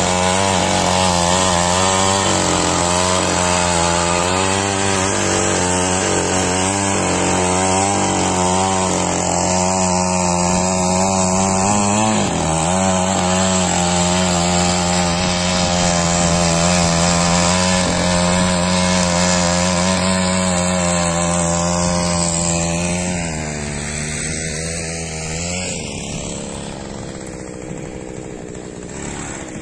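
Small petrol engine of a walk-behind mini power tiller running at working speed while tilling, its note wavering under load. Late on the engine note sags and drops away, leaving a faint hiss.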